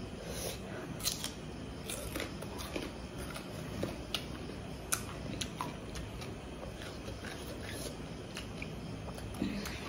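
Close-up eating sounds: chewing with small wet mouth clicks as rice is eaten by hand, and fingers mixing rice on a steel plate. Short sharp ticks come about once a second over a faint steady background noise.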